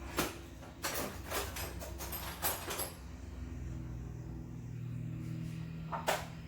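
Hand tools clinking and knocking on metal while working on an ATV engine: a quick run of sharp, irregular clicks and clanks in the first three seconds and one more just after six seconds, over a steady low hum.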